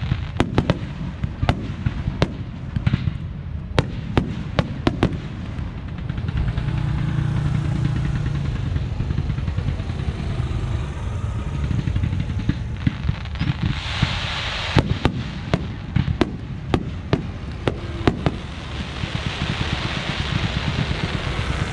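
Aerial fireworks shells bursting in irregular quick succession, sharp bangs one after another. Around the middle, a motor scooter passes close by, running steadily under the bangs.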